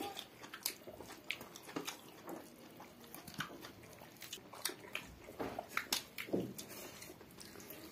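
Close-miked eating sounds: wet chewing and lip smacks with irregular sharp clicks, as roast chicken is torn and rice eaten by hand.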